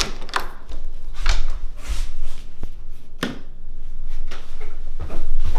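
Kitchen cabinet door opened and things handled inside: an irregular run of knocks, rustles and a couple of sharp clicks.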